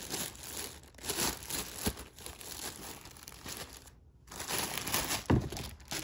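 Clear plastic bag crinkling and rustling as a Greenworks spotlight is unwrapped from it, with a short pause about four seconds in, then a single sharp knock.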